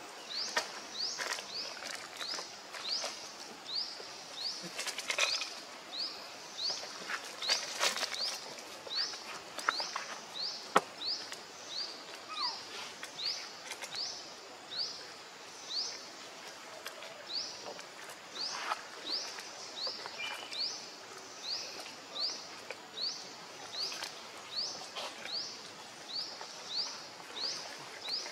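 A short, high, rising chirp repeated steadily about twice a second, an animal's call in outdoor ambience, with scattered light clicks and rustles.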